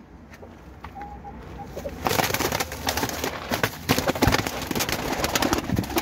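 A tumbler pigeon flapping its wings and scuffling in the straw as it is caught by hand, a burst of noisy rustling and wing strokes starting about two seconds in. The bird is skittish.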